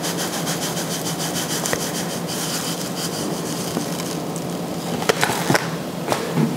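Table salt pouring from a cardboard box onto pork skin: a steady gritty hiss for about four seconds, followed by a few light taps near the end.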